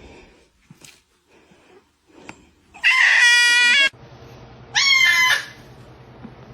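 Two loud, high-pitched animal calls. Each rises quickly and then holds level. The first lasts about a second and comes about three seconds in; the second is shorter and follows a second later.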